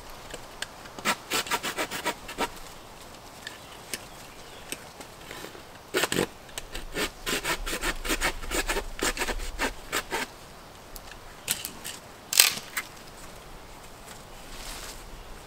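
Small hand saw cutting a dead branch into tripod sections, in quick back-and-forth strokes: a short run, then a longer one of several seconds. A single sharp crack a little later is the loudest sound.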